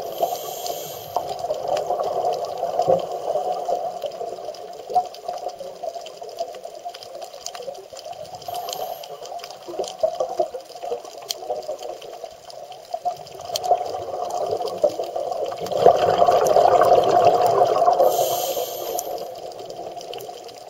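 Underwater noise of a scuba diver's exhaled breath bubbling from the regulator, with short hisses near the start, in the middle and near the end. The bubbling grows loudest a few seconds before the end.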